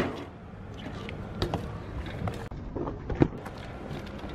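BMX bike knocking and rattling on a concrete ledge and pavement, with a sharp knock right at the start and another about three seconds in.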